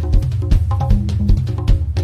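Instrumental passage of a Christian worship song: a drum kit keeps a steady beat with bass drum and snare over a bass line and sustained chords, with no singing.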